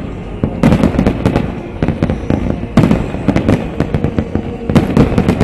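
Aerial fireworks shells bursting in dense volleys of sharp bangs with a rumbling echo between them. Three big clusters of bursts come about two seconds apart, starting just after the beginning, near the middle and near the end.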